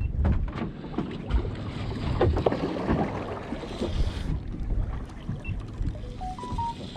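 Wind buffeting the microphone and water moving against a small boat, with scattered knocks as a spinning reel is wound in against a hooked fish. A few short high notes sound near the end.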